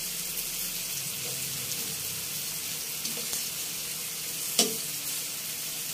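Bacon strips sizzling steadily in a nonstick frying pan, frying in their own rendered fat with no oil added. A single sharp click of the metal tongs against the pan about four and a half seconds in.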